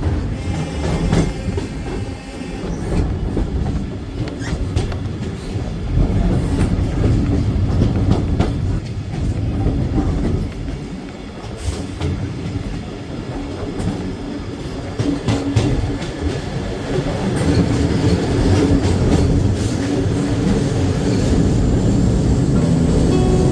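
Train running along the track, its wheels clattering over the rail joints over a steady low rumble.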